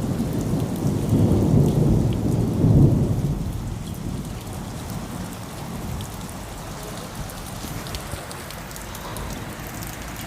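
Thunderstorm: steady rain with a low rumble of thunder that swells in the first three seconds and then dies away, leaving the rain and scattered drops.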